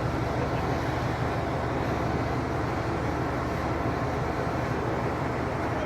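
Steady low rumble and rushing noise on the open deck of a cruise ship under way: wind across the microphone mixed with the ship's own running noise, with no distinct events.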